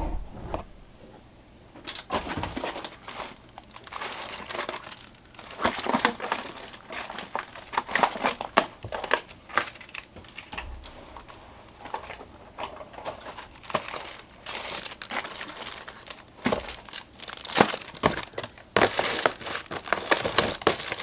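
Packaging crinkling and rustling in irregular bursts as packs of false eyelashes are handled and pushed into an overfull storage bin. The crinkling starts about two seconds in.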